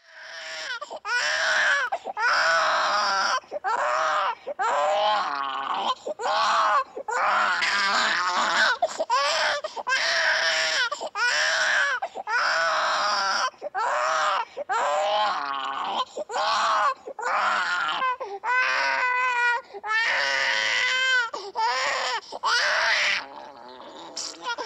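A baby crying and fussing: a run of loud wails, one after another with short breaths between, turning into shorter wavering cries in the last few seconds before easing off near the end.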